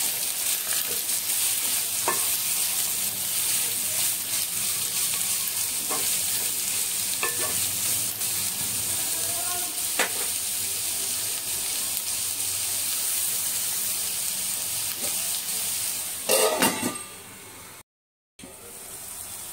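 Chopped onions frying in hot oil in a kadai: a steady sizzle, with a spatula scraping and knocking against the pan now and then. Near the end come a few louder knocks, then the sizzling drops away.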